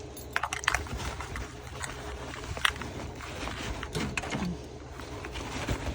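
Rustling and scattered light clicks and knocks of hands working something through the fabric wall of a grow tent.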